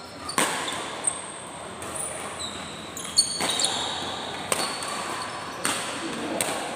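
Badminton doubles rally: about six sharp racket strikes on the shuttlecock, roughly a second apart, with short high squeaks of court shoes between the hits, echoing in a large hall.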